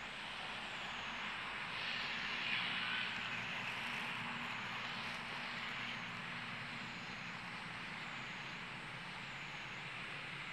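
Steady outdoor background hiss with a faint low hum, swelling slightly about two seconds in and easing off again.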